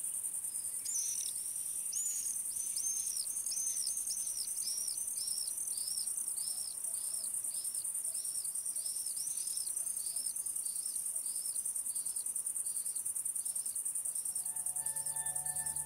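Stridulating meadow insects give a steady, high, finely pulsed chirring, over which a run of short high chirps repeats about twice a second and fades out. Soft ambient music comes in near the end.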